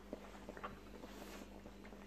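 Faint, irregular soft clicks and rustles from a whelping English Springer Spaniel and her newborn puppies at her belly, over a steady low hum.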